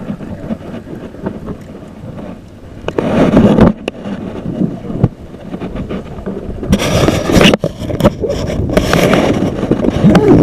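Wind rumbling on a worn camera's microphone, with a loud rustle about three seconds in. From about seven seconds in, loud rubbing, scraping and knocks as a hand and clothing handle and cover the camera.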